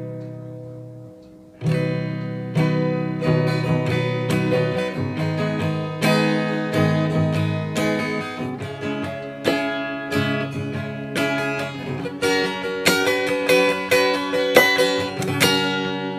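Acoustic guitar fitted with a capo playing a song intro: a chord left to ring and fade, then from about two seconds in a steady run of picked and strummed chords.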